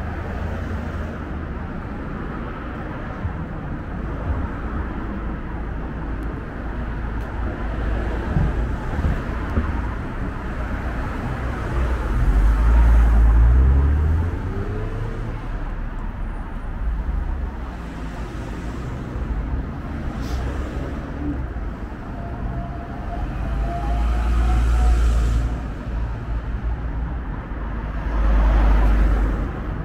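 Road traffic on a busy street: cars passing steadily. Louder vehicles rumble past about twelve seconds in, and twice near the end.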